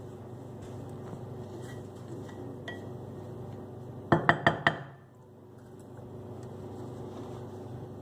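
Four quick clinks of a glass cooking dish being handled, about four seconds in, over a steady low hum.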